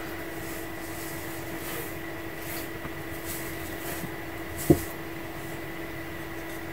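A wooden mallet strikes a small leather-tooling tool once, a sharp tap about two-thirds of the way through, driving in shading along the lines of the tooled leather. A steady low hum runs underneath.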